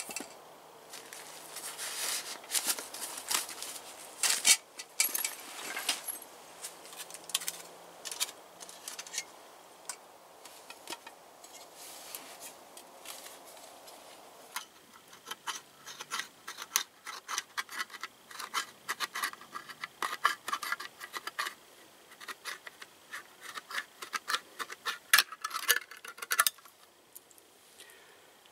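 Clinks and rattles of gear being handled. From about halfway on comes a quick, steady run of clicks as a small folding P-38-type can opener punches its way around the lid of a steel soup can, stopping shortly before the end.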